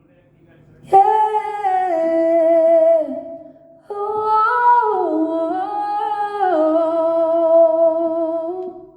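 A singer humming a wordless melody without words, in two phrases with sliding, wavering notes and a short gap between them.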